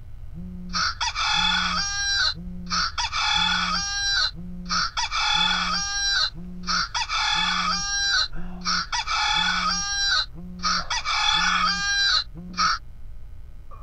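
Rooster crowing sound effect: the same crow repeated six times, about every two seconds, over a low tone pulsing about once a second.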